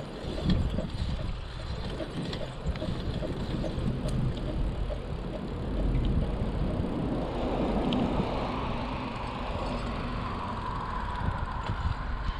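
Wind rumbling on a chest-mounted action camera's microphone, with tyre and road noise from riding a bicycle. Passing traffic swells about halfway through.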